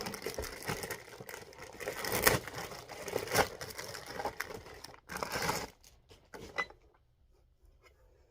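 Packaging rustling and crinkling as a new vacuum cleaner is unpacked, with scattered clicks and knocks of parts being handled; it dies down to a few small clicks about two-thirds of the way through.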